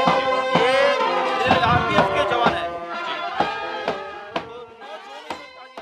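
Music with sustained held notes over regular sharp hits, fading out steadily toward the end.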